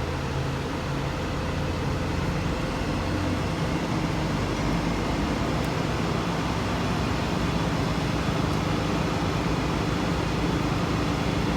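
Steady low mechanical drone with a constant hum.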